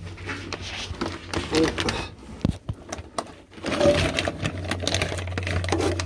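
Irregular rapid clicks, knocks and rubbing from gloved hands handling the phone and clambering against metal in a cramped space, over a steady low hum that gets louder partway through.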